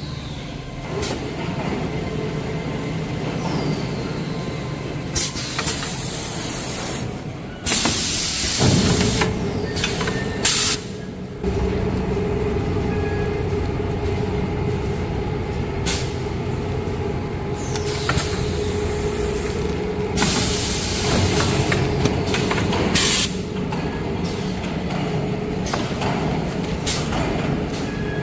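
Kitchen-towel roll packing machine running with a steady hum, its pneumatic cylinders letting out short hisses of air several times, with a few sharp clicks between them.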